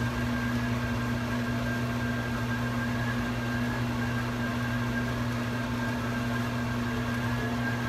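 Steady, unchanging hum with a strong low drone and a thin, fainter high whine above it, over a light hiss; no other sounds.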